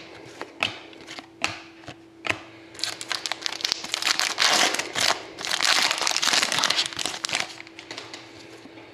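A few sharp flicks as trading cards are slid one by one off a stack, then several seconds of a foil hockey card pack wrapper being torn open and crinkled, then more soft card flicks near the end.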